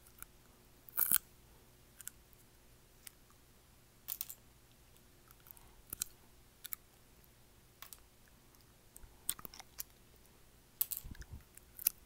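Teeth biting and prising at acrylic nails, close to the microphone: scattered sharp clicks and small cracks at irregular intervals, bunching about a second in and again in the last few seconds.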